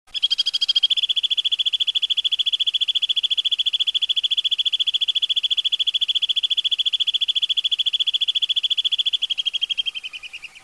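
A high, rapid, evenly pulsed rolling trill ('tembakan ngerol') held for about ten seconds. It is the kind of call played to tutor white-rumped shamas. It drops slightly in pitch and fades near the end, then cuts off.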